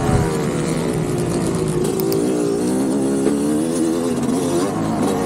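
Motocross dirt bike engine running under load; its pitch sinks over the first couple of seconds, then swings up and down as the throttle is worked.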